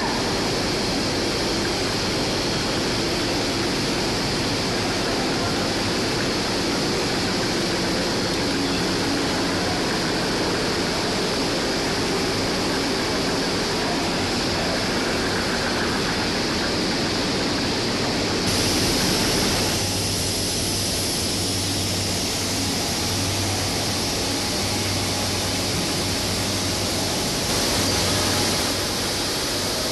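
Steady rushing noise of a running cucumber-jar processing line, with conveyors carrying glass jars through a tunnel pasteurizer. The noise changes about two-thirds of the way through, and a low hum joins it for several seconds.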